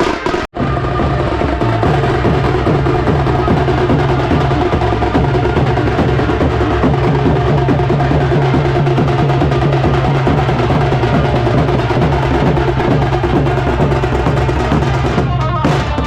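A group of drums played together in a dense, fast, continuous rhythm, with a momentary break about half a second in.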